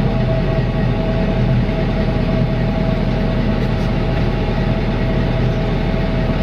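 Ford F-250 Super Duty pickup idling while stopped, heard from inside the cab as a steady hum.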